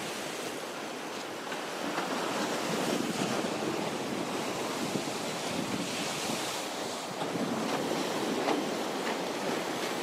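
Stormy sea surf: choppy waves washing and breaking against concrete breakwaters, with wind buffeting the microphone. The wash swells about two seconds in and again near the end.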